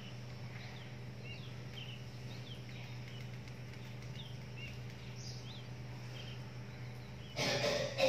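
Faint, scattered short bird chirps over a steady low hum, with a brief louder burst of noise near the end.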